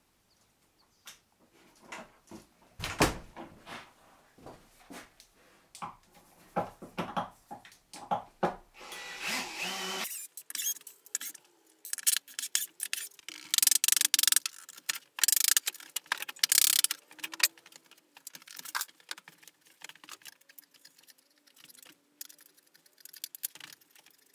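Scattered knocks and handling clatter, then a cordless drill-driver running in short bursts about halfway through as screws are driven out of the board mould around the cured epoxy tabletop.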